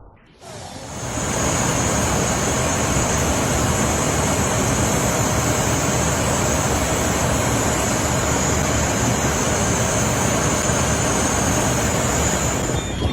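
Steady cabin noise of an airliner in cruise: an even rush of airflow and engine noise with a faint high whine, starting about a second in after a cut.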